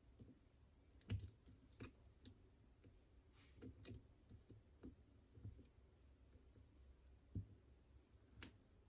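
Faint, irregular metallic clicks of lock-picking tools working the tubular keyway of a Caniss padlock as it is picked back to the locked position, with a sharper click near the start and another near the end.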